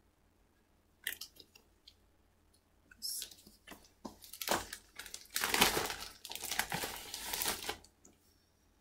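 Comic books being handled and shuffled, paper rustling in a run of short scraping, crinkling bursts that start about a second in, grow busier in the second half and stop shortly before the end.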